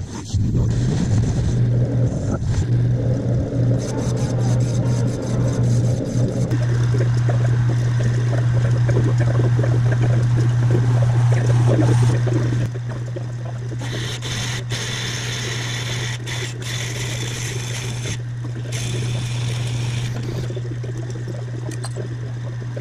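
Metal lathe running with a steady low hum as a cutting tool turns a spinning metal bar, followed by a drill bit in the tailstock chuck boring into the end of the bar, with a higher-pitched cutting noise.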